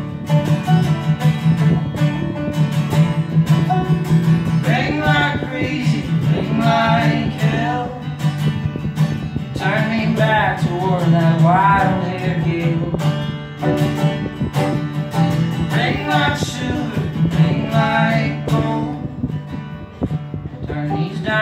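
Live folk band music: acoustic guitar and banjo playing a steady accompaniment, with a melody line that rises and falls in three long phrases over it.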